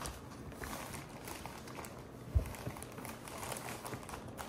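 Clear plastic bag crinkling and rustling as a child's hand rummages inside it and pulls out pieces, with a single soft thump about two seconds in.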